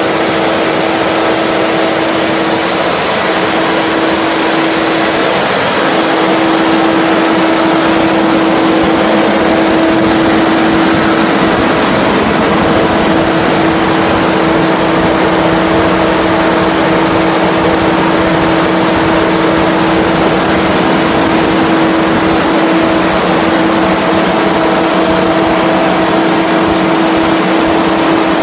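150 kW generator set running steadily, with a constant engine drone and a steady hum.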